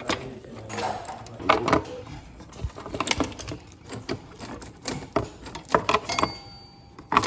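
Metal roller drive chain of a Suzuki LTZ 400 ATV clinking and clicking irregularly while it is handled and fitted, with sharp clinks spread through and a louder one near the end.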